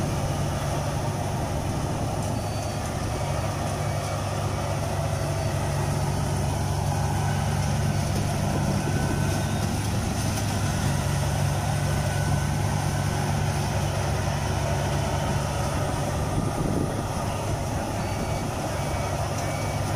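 Kubota rice combine harvester's diesel engine running steadily as the tracked machine crawls through deep mud, a continuous low drone.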